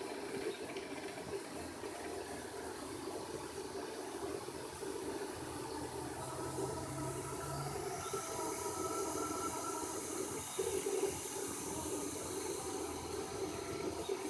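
CTC dual-extruder 3D printer running a print: a steady fan hiss with the stepper motors humming at tones that change pitch as the print heads move.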